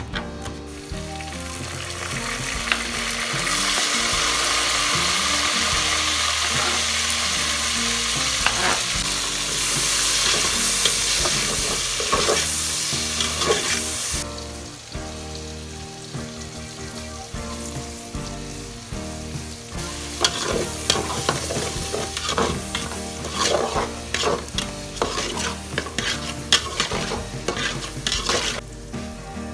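Tomato-and-spice masala sizzling in hot oil in a metal cooking pot, loud and steady for the first half, then quieter. In the second half a spoon scrapes and clicks against the pot as the masala is stirred.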